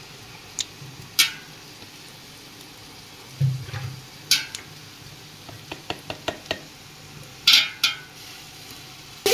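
Fried onions and ginger-garlic paste sizzling gently in oil in a large metal pot, with scattered metal clinks of utensils against the pot: sharp ones a little past one second, past four seconds and twice near the end, and a quick run of light ticks around six seconds. A dull thump about three and a half seconds in.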